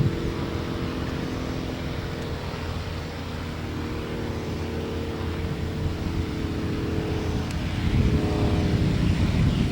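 Light propeller aircraft's piston engine running steadily, getting louder about eight seconds in.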